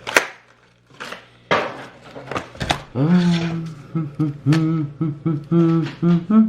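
Trading cards being handled and sorted: sharp card snaps and slides against each other and the table in the first half. From about three seconds in, a person hums a tune in short held notes over the card handling.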